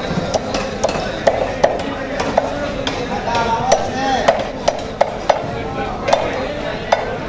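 A large knife blade striking and chopping through a red snapper on a wooden block, in quick repeated sharp knocks about three a second.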